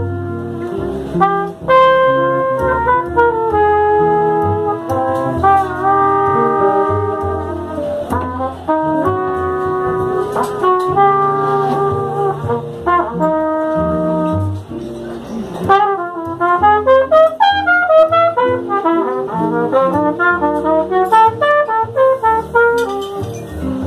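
Live swing jazz: trumpet and cornet play held melody notes together over archtop guitar and double bass. About two-thirds of the way through, a horn breaks into a run of quick short notes.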